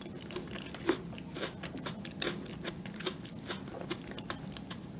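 Chewing a mouthful of no-bake rare cheesecake topped with Shine Muscat grapes: a stream of small, irregular mouth clicks, with one louder click about a second in.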